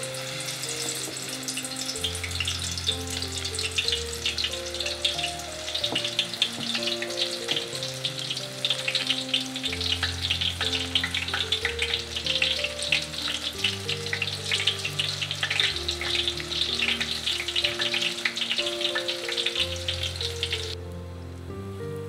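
Enoki mushrooms frying in hot oil in a pot: a dense, steady sizzle full of crackles that cuts off abruptly near the end. Soft background music plays underneath.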